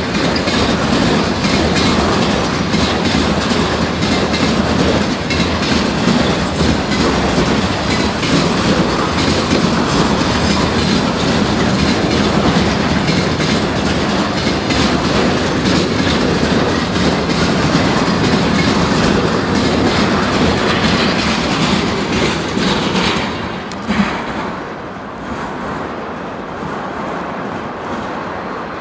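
Freight train of container flatcars rolling past at speed, its wheels clattering with a rapid run of clicks over the rails. About three-quarters of the way through, the last wagon goes by with a final knock, and the sound drops to a quieter fading rumble as the train moves away.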